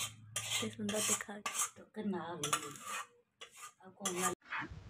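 Metal spoon scraping and clinking against a stainless steel bowl of chicken curry, in a series of short strokes with a brief pause partway through.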